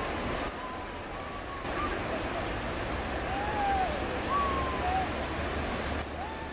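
Rushing river water with wind noise on the microphone, the rush dropping and returning abruptly a few times. Faint distant voices call out now and then.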